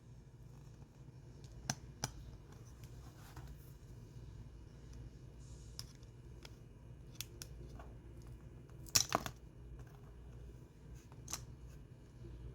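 Scattered small clicks and taps of small tools and parts being handled on an opened smartphone, the loudest a brief cluster about nine seconds in, over a low steady hum.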